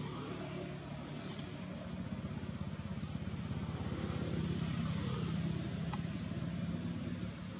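A motor vehicle's engine running steadily, growing a little louder through the middle and then easing off, with a single short click near the end.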